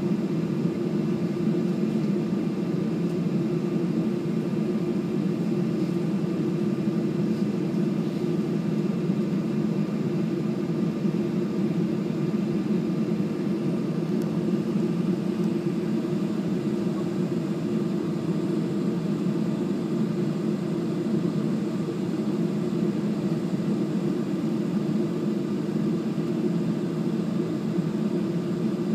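Steady cabin hum of a jet airliner on the ground with its engines at low power, heard from inside the passenger cabin; a deep, even drone with faint steady whines above it and no change in pitch.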